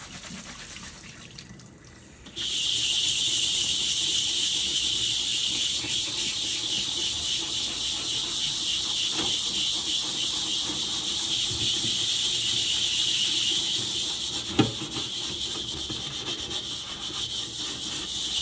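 A scrub pad scours a rusty carbon steel wok coated in Bar Keepers Friend cleanser, making a steady scraping hiss of quick strokes that starts a couple of seconds in. A single knock sounds near the end.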